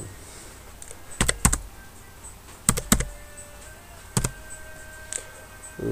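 Computer keyboard keys pressed one at a time, typing in a five-digit verification code: about five sharp clicks, mostly in quick pairs about a second or more apart.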